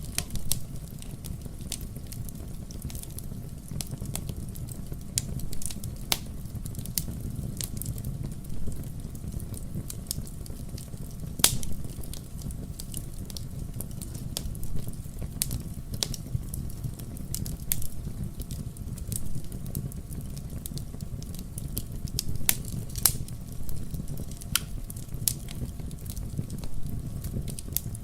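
Wood fire burning in a fireplace, a steady low rumble of flames with sharp crackles and pops at irregular intervals.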